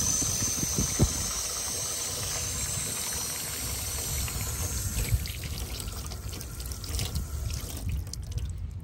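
Water running from a push-button drinking-water tap and splashing into a plastic trough basin, a steady stream that stops near the end as the tap is released, leaving a drip.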